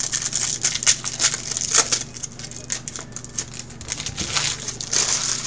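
Foil trading-card pack wrappers crinkling and rustling as they are handled, a dense run of sharp crackles.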